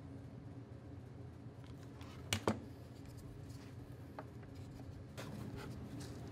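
Two light knocks in quick succession about two seconds in, with a few fainter ticks later, as small wooden pieces are handled and set on a wooden workbench; a low steady hum underneath.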